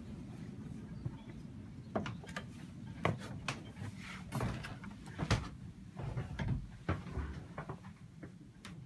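Irregular knocks, thumps and clicks of someone climbing down a sailboat's companionway into the cabin and handling the camera, over a steady low hum.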